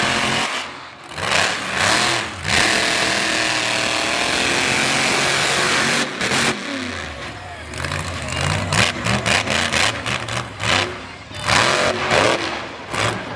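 Monster truck engine revving hard, with its pitch rising and falling and held at full throttle for a few seconds through a jump. Near the end it turns into a quick series of short throttle bursts as the truck lands and bounces on the dirt.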